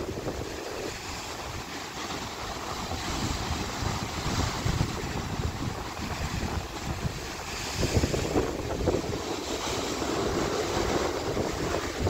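Rough sea surf churning and breaking around coastal rocks, a steady wash of foaming water with a louder surge about eight seconds in. Wind buffets the microphone, adding low rumbles.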